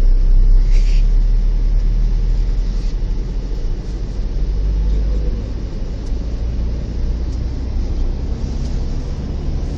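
Inside a moving car: a steady low rumble of road and engine noise while driving.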